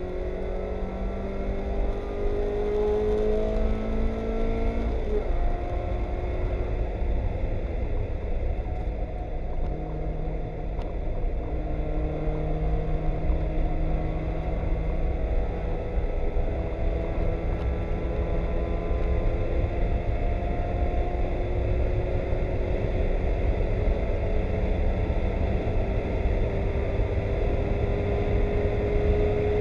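Mazda Miata race car's four-cylinder engine heard from inside the cockpit, pulling hard and climbing in pitch, with a sudden drop about five seconds in as the driver shifts, then building again near the end. A steady low road and tyre rumble runs underneath.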